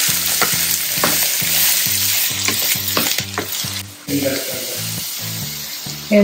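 Chopped red onions sizzling as they fry in a nonstick kadai, stirred with a wooden spatula that scrapes and taps the pan. The sizzle is steady and drops slightly in level about four seconds in.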